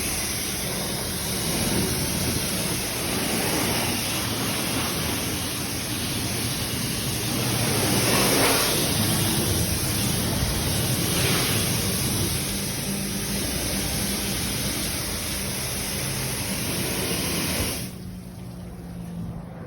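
A car-wash pressure wand sprays rinse water onto a motorcycle in a steady hiss, with a low pump hum beneath. The spray cuts off suddenly near the end.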